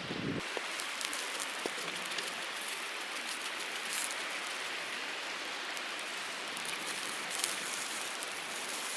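Steady hiss of a mountain stream together with chicken sizzling over a charcoal campfire, with scattered small crackles and pops.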